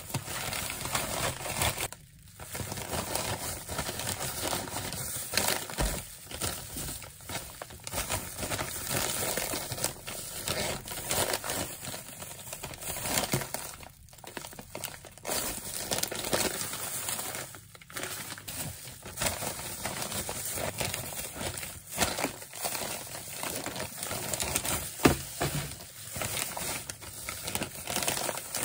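Plastic zipper storage bags and a disposable plastic glove crinkling and rustling continuously as handfuls of thinly sliced beef brisket are packed in, with a few brief pauses.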